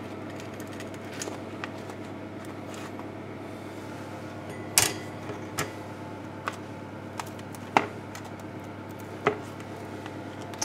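A handful of light clicks and knocks as a plastic spatula lifts baked scones off a metal baking tray onto a wire cooling rack, the loudest about halfway through, over a steady faint hum.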